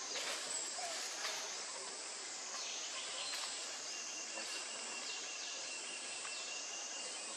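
Tropical forest ambience: a steady high-pitched drone of insects, swelling and fading about once a second, with a thin steady tone joining in partway through.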